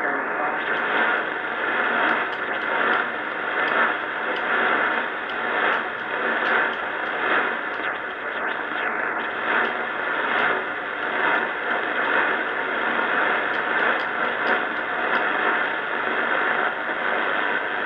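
Steady HF static and hiss from a Drake R77 marine receiver, heard as it is tuned across the shortwave band around 13 MHz. No station comes through, and a few faint steady tones sit in the hiss.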